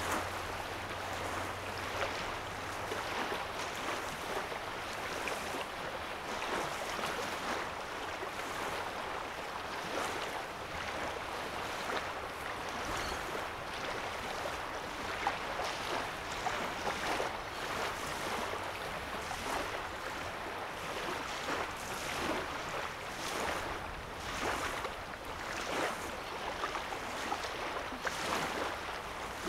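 Small waves lapping on a sandy lake shore: a continuous wash of water broken by many small splashes. A low hum is heard under it for about the first three seconds, then fades.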